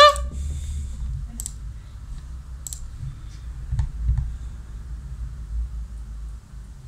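A few scattered sharp clicks, about four in all between one and four seconds in, over a low, uneven rumble.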